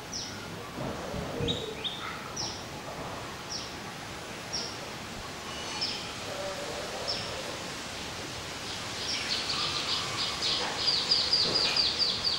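Birds calling: short high chirps, each sliding down in pitch, come about once a second. In the last few seconds they quicken into a fast run of chirps, the loudest part.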